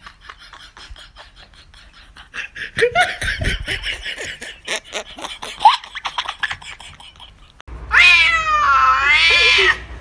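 Domestic cat yowling: one long, wavering wail that falls and rises in pitch, lasting about two seconds and starting suddenly near the end. Before it, a person laughing.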